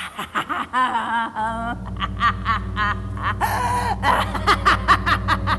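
A woman cackling with wild, rapid bursts of laughter. About a second and a half in, a low steady drone starts under it.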